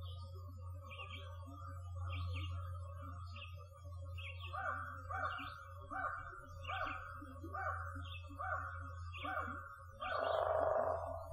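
Crows cawing in a run of harsh calls about one a second, starting about four seconds in and ending with a louder, longer burst near the end. A smaller bird repeats a short high call about once a second throughout, and a low steady hum runs underneath.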